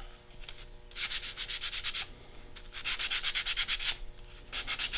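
Sandpaper rubbed quickly back and forth over a carved foam duck head, roughing in its shape, in three bursts of rapid strokes with short pauses between.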